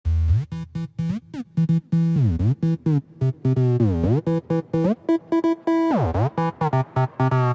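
Instrumental intro of an electronic pop song: a synthesizer playing short choppy notes, many of them sliding down and back up in pitch.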